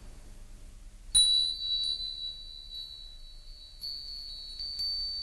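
A high, clear chime rings out about a second in, the loudest strike, and is struck three more times, each note ringing on.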